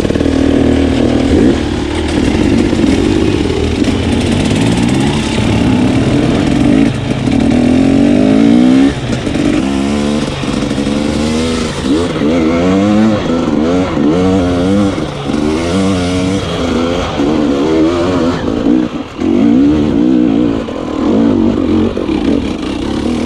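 Enduro dirt bike engine being ridden hard up a rocky trail. The pitch is fairly steady at first, then from about nine seconds in it rises and falls again and again as the throttle is opened and shut.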